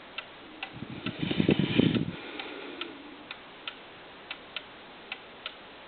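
Herr 8-day cuckoo clock's adjustable-verge escapement ticking in an uneven, limping rhythm, short and long gaps alternating: the clock is out of beat. About a second in, a low rumble of the clock being handled and set down.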